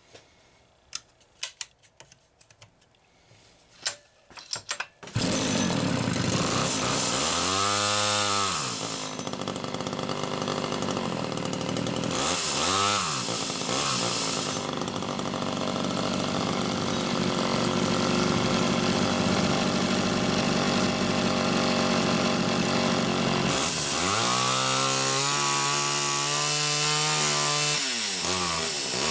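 Homelite Super XL two-stroke chainsaw: a few faint clicks, then about five seconds in the engine fires and keeps running. It is revved up and back down twice in quick succession and then several more times near the end.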